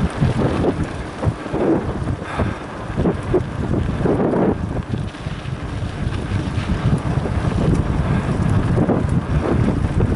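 Wind buffeting the microphone of a camera carried on a mountain bike riding a dirt forest track. Under it runs the rumble of the tyres on the rough ground, with irregular jolts and rattles over the bumps.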